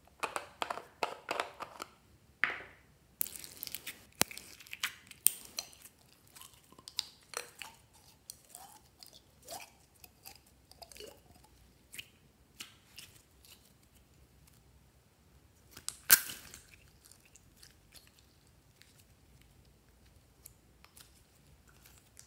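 Clear slime being opened from its plastic container and pulled out into a glass dish: a quick run of sticky crackles and clicks at first, then scattered sticky pops and small squelches, with one sharp, louder pop about sixteen seconds in.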